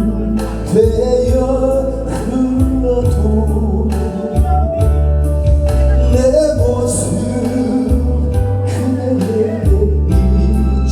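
A song playing: a steady drum beat and bass under a melody, with singing.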